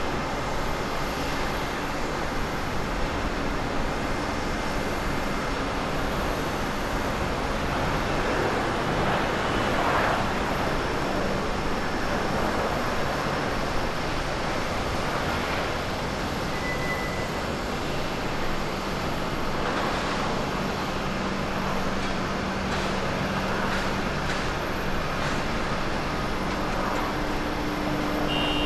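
Boeing 737-700 airliner's jet engines heard from a distance as it touches down and rolls out along the runway: a steady rumble and hiss that swells briefly about eight to eleven seconds in.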